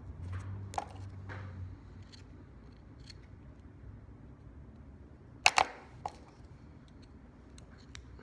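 Small scissors snipping the cotton wick tails of a rebuildable tank atomizer, close to the microphone. One sharp click comes under a second in, then a quick pair of clicks and one more a little past halfway.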